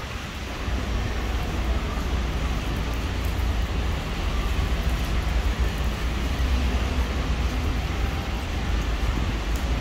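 Traffic noise on a wet city street: a steady rumble and hiss with no distinct events.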